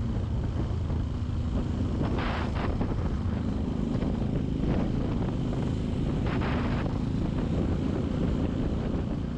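A small Suzuki motorcycle's engine running steadily at low speed, heard from the bike with wind rush on the microphone. Two brief hissing swells come about two and six seconds in.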